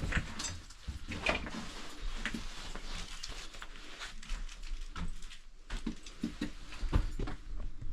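Footsteps and shuffling over a debris-strewn floor: irregular crunches, clicks and knocks, with a low rumble underneath.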